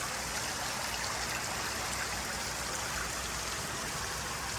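Cooling tower water falling from the fill into the basin like heavy rain: a steady splashing that does not change.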